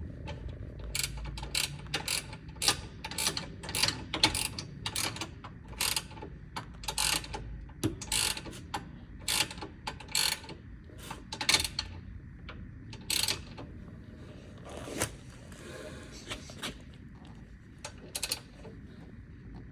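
Hand ratchet wrench clicking in short, irregular strokes as bolts are tightened down.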